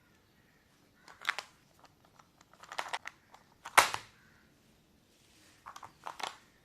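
Several sharp clacks or snaps at uneven intervals, the loudest about four seconds in.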